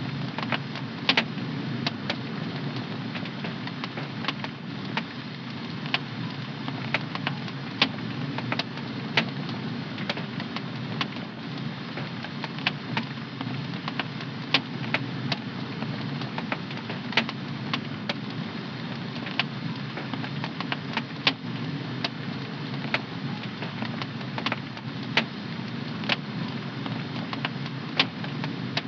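Wood fire burning in a home fireplace: a steady low rush of flame with irregular sharp crackles and pops, about one or two a second.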